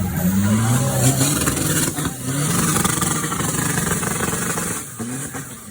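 Off-road 4x4 competition vehicle's engine revving, its pitch rising and falling repeatedly, then easing off and dropping away about five seconds in.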